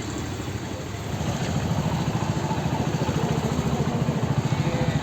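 A vehicle engine idling close by, a fast, even low throb over street noise, growing louder about a second in.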